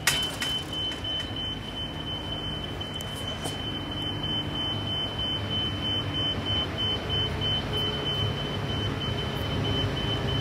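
Diesel locomotives FL 220 and VL 361 approaching at the head of a container train, their engines a low steady drone that grows slowly louder.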